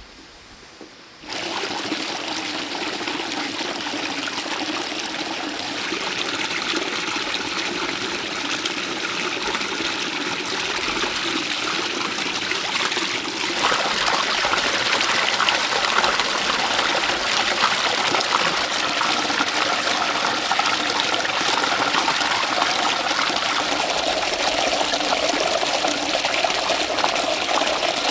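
Running water, a steady splashing flow that gets suddenly louder about a second in and again about halfway through.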